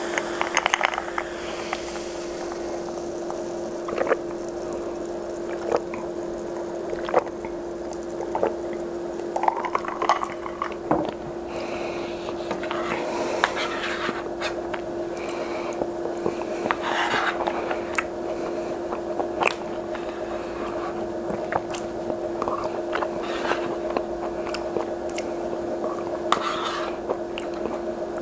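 Close-miked eating sounds: a sip and swallow from a glass near the start, then chewing of peas and fish sticks, with scattered short clicks, wet mouth noises and the wooden spoon on the plate. A steady low hum runs beneath it all.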